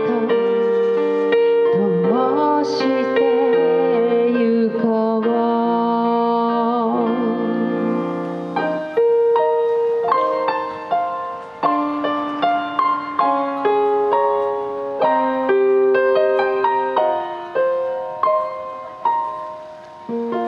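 Live female vocal with electric keyboard accompaniment: she sings a held closing phrase with vibrato over sustained chords, then about nine seconds in the voice drops out and the keyboard plays a solo outro, single notes and chords each fading away.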